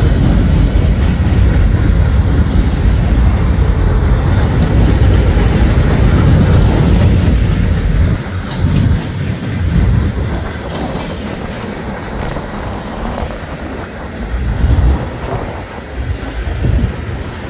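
Freight cars of a long train rolling past close by, their steel wheels clacking over the rail joints over a heavy low rumble. The sound drops noticeably about halfway through, then comes in uneven swells.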